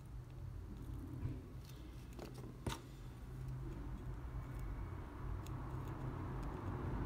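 Quiet workbench handling during soldering: two sharp clicks, about a second in and near the middle, as the solder reel is set down and tweezers are picked up, over a steady low hum.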